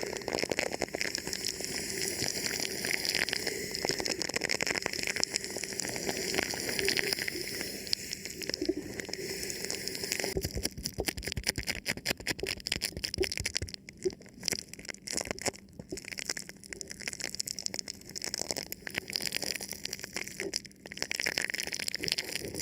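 Thin plastic film wrapped over a microphone crinkling and crackling as it is touched and rubbed. A dense, fast crackle thins to sparser, separate crackles for several seconds past the middle, then grows dense again near the end.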